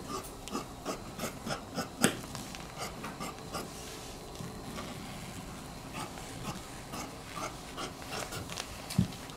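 Large tailor's shears cutting through medium-heavyweight hymo canvas: a run of blade snips and clicks over the rasp of the cloth, with the loudest clicks about two seconds in and near the end.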